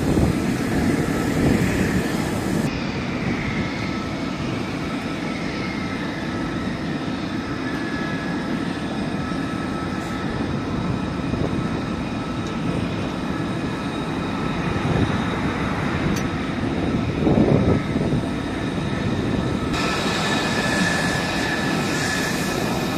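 Fighter jet engines running at idle on the flight line: a steady rumbling rush with a thin high whine on top, swelling briefly louder a little after the middle.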